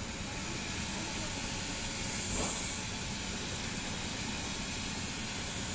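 Steady hissing background noise, with one brief, slightly louder swell about two and a half seconds in.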